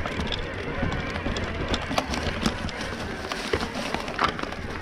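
Mountain bike tyres rolling over dry fallen leaves and twigs, with a steady rustle and scattered crackles, clicks and knocks from the bikes over the rough ground. A sharper knock comes near the end.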